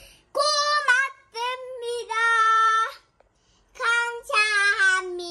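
A young girl singing unaccompanied in a high voice, short phrases with held notes, broken by a brief pause about three seconds in.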